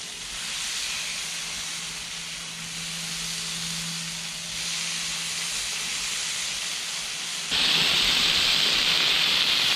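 Smashed beef burger patties sizzling on a hot Blackstone flat-top griddle under two cast-iron burger presses: a steady frying hiss that jumps louder about seven and a half seconds in.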